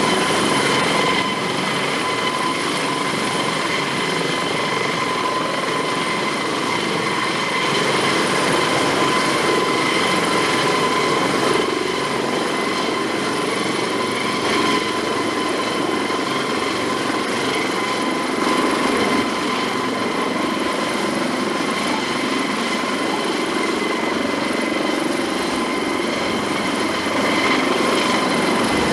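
Eurocopter AS365 Dauphin twin-engine helicopter running steadily: a continuous rushing rotor and engine noise with a steady high whine over it.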